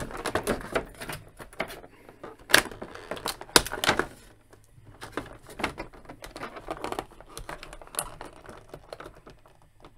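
Clear plastic blister tray crackling and clicking as an action figure is handled and worked loose inside it, with a couple of sharper clicks about two and a half and three and a half seconds in.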